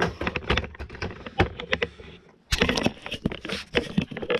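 Footsteps and camera handling noise: a run of irregular knocks, clicks and shuffles while walking across a workshop, with a brief pause about two and a half seconds in.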